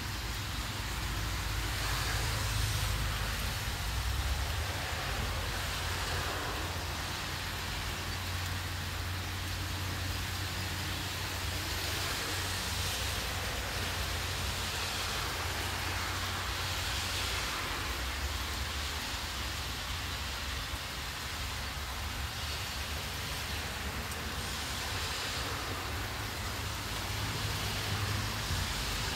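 Steady light rain falling, an even hiss that swells and eases every few seconds, over a continuous low rumble.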